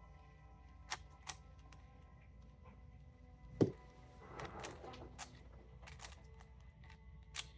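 Speed cube being turned by hand: scattered sharp plastic clicks as its layers snap round, with a louder, deeper knock about three and a half seconds in.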